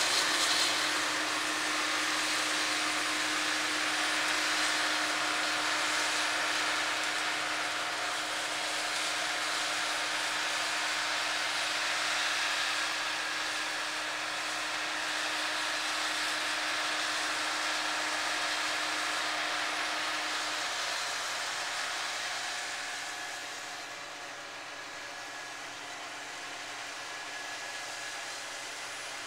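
Combine harvester running steadily during canola harvest: a continuous mechanical rush with a steady hum. The hum stops about two-thirds of the way through, and the sound is a little quieter over the last few seconds.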